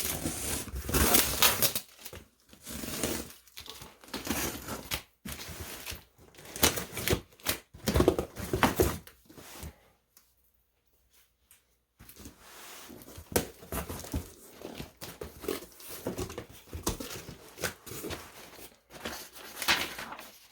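A cardboard shipping box being cut and torn open by hand: tape ripping and cardboard and packing paper rustling and crinkling in irregular bursts, with a silent gap of about two seconds midway.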